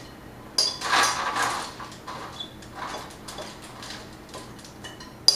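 Seasoned cooked garbanzo beans tumbling out of a glass bowl onto a parchment-lined baking sheet, with a spoon scraping and clinking against the bowl. The pour is loudest about a second in, then quieter scraping follows, and a sharp clink comes near the end.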